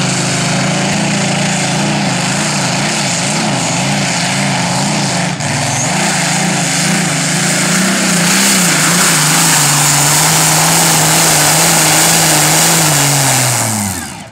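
Pulling tractor's engine at full throttle hauling the weight sled, its pitch wavering up and down for the first half, then holding steady and louder. Near the end the pitch falls and the sound drops away as the throttle comes off at the end of the pull.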